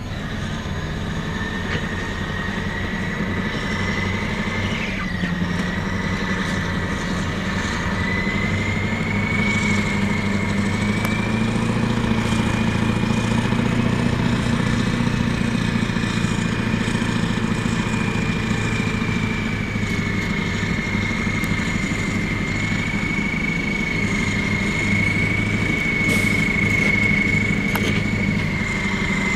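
Caterpillar 631E wheel tractor scraper's diesel engine working hard while the scraper cuts and loads its bowl, with a steady high whine over the engine note. It grows louder over the first ten seconds or so, then holds steady.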